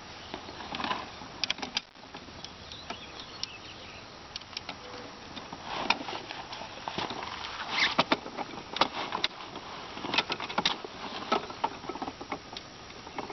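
Wooden yurt lattice wall clacking and rattling as spacer bars are fitted into it by hand: irregular light knocks and clicks, busiest in the second half.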